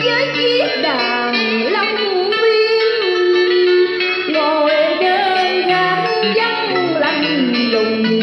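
A woman sings a southern Vietnamese lý folk song into a karaoke microphone, with gliding, ornamented vocal lines over a recorded musical backing track.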